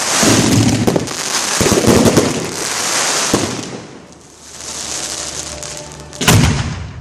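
Fireworks at close range, heard from the firing site: launches and bursts with dense crackling for the first few seconds, thinning to a fading crackle, then one sharp loud bang near the end.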